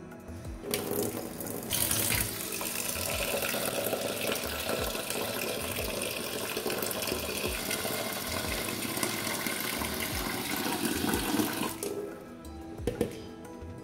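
Kitchen tap running a steady stream of water into a steel bowl over a stainless steel sink, starting about a second in and stopping near the end: water to rinse the buttermilk out of homemade butter. Soft background music plays under it.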